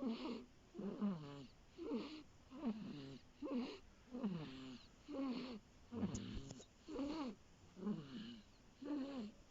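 A five-week-old baby snoring: a quick, even breathing rhythm of a little over one breath a second, each breath carrying a short squeaky tone that falls in pitch.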